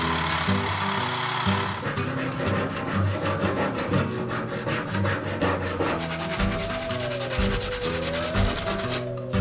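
Sandpaper rubbing on a micarta knife handle in quick back-and-forth strokes, which grow more distinct about two seconds in, over background music.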